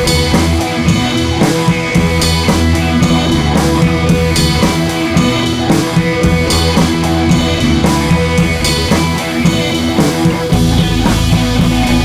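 Background rock music with drums and guitar over a steady beat; the bass gets heavier near the end.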